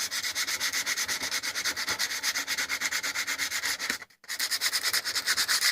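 Cast-iron hand-plane part rubbed back and forth on coarse, lubricated abrasive in quick even strokes, about five a second, scrubbing off surface rust. There is a brief pause about four seconds in.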